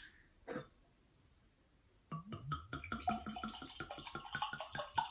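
Wine glugging out of a bottle into a glass: a run of quick gurgles that starts about two seconds in and lasts about three seconds.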